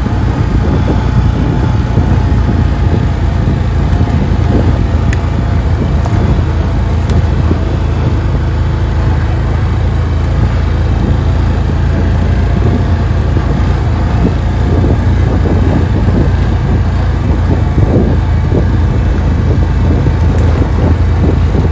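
Can-Am Outlander 650 ATV's V-twin engine running steadily under way on a trail ride.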